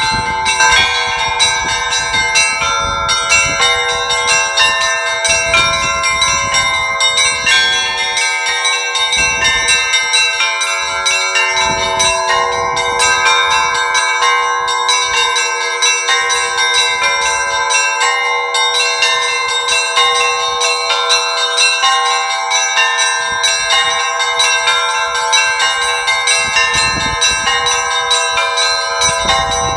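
A set of Orthodox church bells on a belfry, new and old bells rung together in a continuous peal. Smaller bells are struck in a quick repeating pattern over the long ringing of larger ones.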